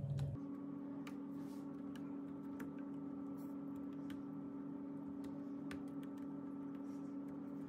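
Scattered light clicks and taps of a wooden spoon against a metal baking tray as thick chickpea-flour batter is spread, over a steady hum.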